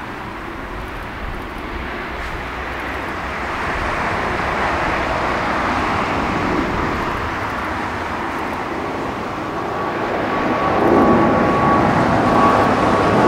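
Boeing 777-200 twin-engine jetliner climbing out after takeoff: a steady jet roar that grows louder as the aircraft closes in. About two-thirds of the way in, a thin, steady whine joins the roar.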